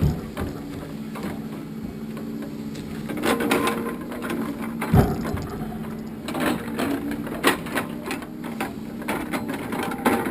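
Irregular metallic clicks and clanks of steel chains and straps being tightened over a log load on a logging truck, with a steady engine hum underneath.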